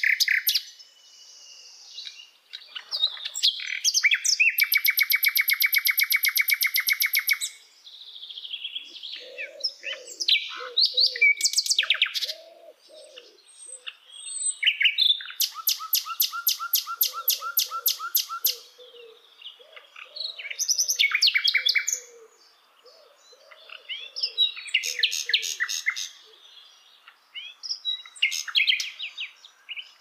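Common nightingale singing: varied, loud phrases that include fast rattling runs of rapidly repeated notes, broken by short pauses and softer, lower notes.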